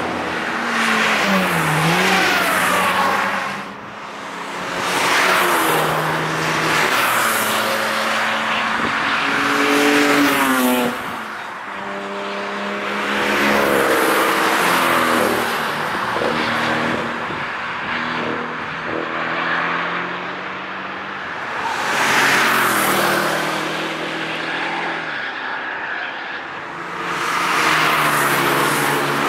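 A string of cars passing at speed one after another, about eight in all, each engine revving hard and changing gear as it goes by, with the pitch dropping as each one passes.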